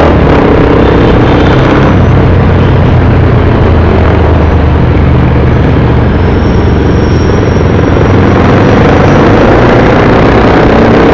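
Motor scooter engine running steadily while riding, over a steady rush of wind and road noise.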